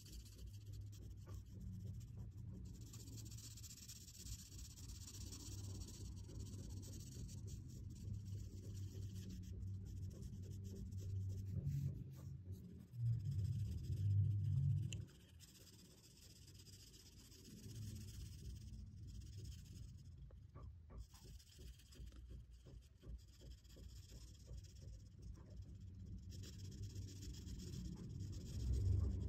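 Chisel-tip marker scratching and rubbing over paper as letters are filled in with back-and-forth strokes. A louder low rumble lasts about two seconds midway through.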